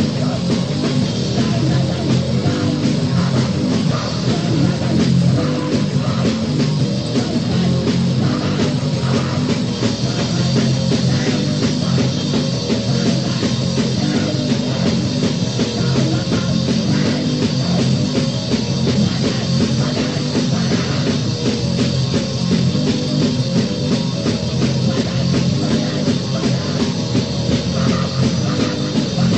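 Crust/grind punk playing loud from a compilation cassette: drums and distorted guitars in a dense, unbroken wall of sound.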